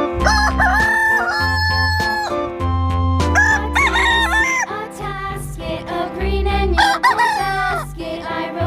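Rooster crowing, three long crows, over background music with a repeating bass beat.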